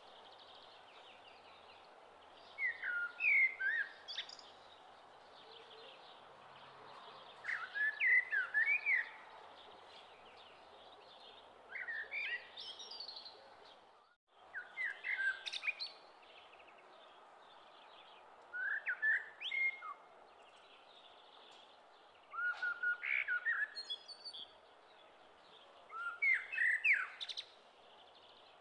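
Songbird singing a short chirping phrase about every three to four seconds, over a faint steady hiss, with a brief silent dropout near the middle.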